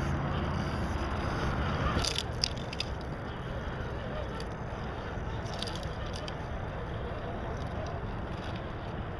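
RC scale rock crawler truck driving over rocks: a steady mechanical running sound with a few sharp clicks and scrapes about two seconds in and again near six seconds.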